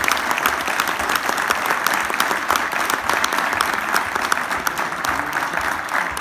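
Audience applauding: many hands clapping in a steady, dense patter that holds at an even level.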